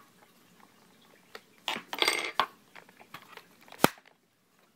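Small metallic clicks and clinks of a screwdriver and screw as the laptop's RAM cover is screwed back down, with a rattling cluster about two seconds in and a sharp click near the end.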